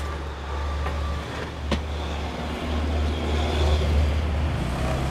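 Motor vehicle engine and road traffic: a steady low engine hum that swells in the middle, with one sharp click about a second and a half in.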